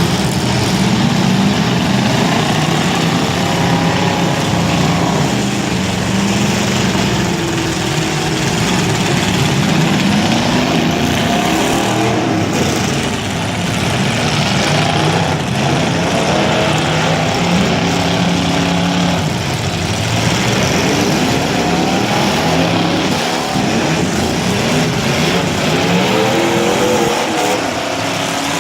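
Several demolition derby car engines running and revving, their pitch rising and falling over and over.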